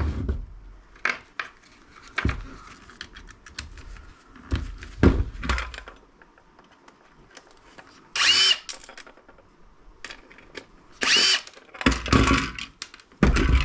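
Power screwdriver spinning in two short runs to back out small screws from a plastic electronics housing, each run with a short whine, amid clicks and knocks of the parts being handled.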